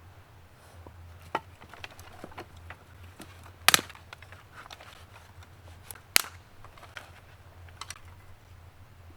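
A handful of sharp cracks or snaps at irregular intervals, the loudest a double crack about four seconds in and another about six seconds in, with fainter ticks between.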